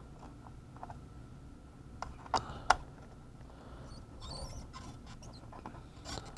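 A few small, sharp clicks and taps from soldering tools and the circuit board being handled during hand soldering, over a low steady hum, with a brief faint scrape in the middle.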